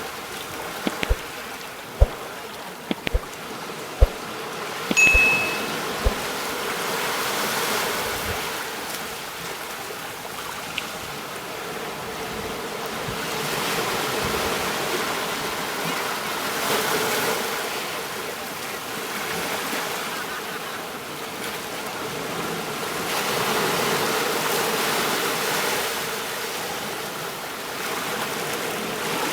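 Sea waves washing in, the surf noise swelling and easing every few seconds. A few sharp knocks fall in the first six seconds, and a brief high chirp comes about five seconds in.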